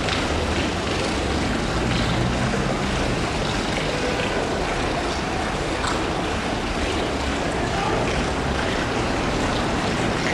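Steady rushing noise of wind buffeting the camera microphone outdoors, with a faint knock about six seconds in.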